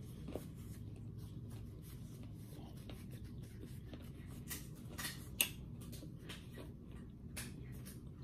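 Paper napkin rubbed and crumpled between the fingers as greasy hands are wiped, giving faint scattered crinkles and rustles over a low steady room hum.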